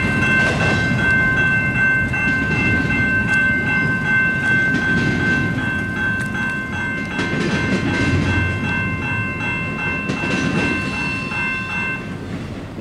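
A CP intermodal stack train rolling through a level crossing with a low rumble and clatter of wheels on rail. A crossing warning bell rings steadily over it and cuts off near the end, and the train noise slowly fades.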